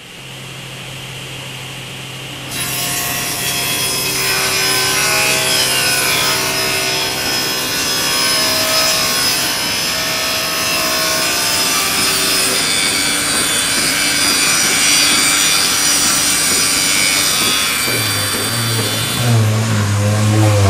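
A continuous rough rasping, scraping noise that sets in about two and a half seconds in, after a low steady hum.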